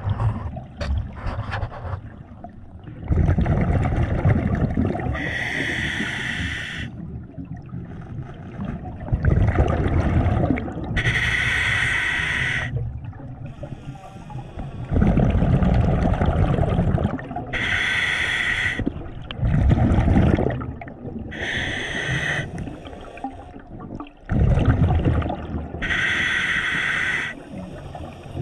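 Scuba regulator breathing heard underwater: a hissing inhale through the regulator alternating with a rumble of exhaled bubbles, about five breaths.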